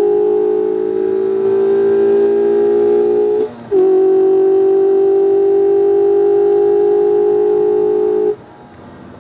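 2019 Mazda MX-5 RF's 2.0-litre four-cylinder engine pulling hard down a straight, its note slowly rising in pitch. It breaks off briefly about three and a half seconds in, then climbs again before falling away sharply near the end.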